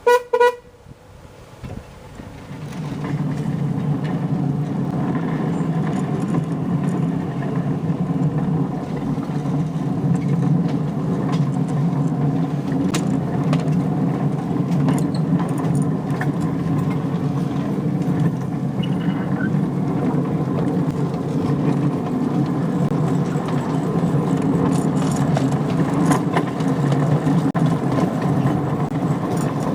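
A 7¼ inch gauge miniature railway train starting off after a short toot, then running steadily: an even rumble and rattle of the wheels on the track and the riding cars, building up over the first two seconds or so.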